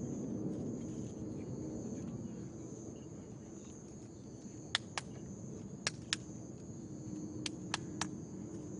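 Steady high chirring of night insects over a low murmur of background noise. From about halfway through, seven short sharp clicks come, mostly in pairs about a quarter second apart.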